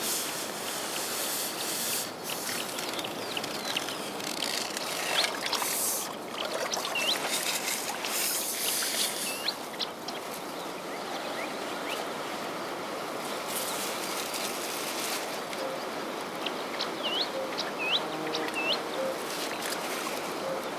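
Birds chirping in short repeated calls over a steady outdoor hiss, with a few brief bursts of handling noise from the landing net.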